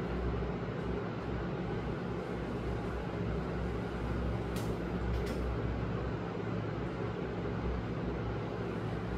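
Steady low electrical or machine hum under an even hiss, with two short sharp clicks about halfway through.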